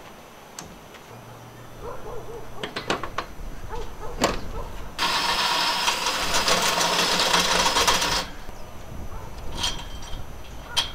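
Cordless drill/driver running for about three seconds as it drives a fastener into a solar panel's mounting frame, stopping abruptly. A few knocks and clatters come before it.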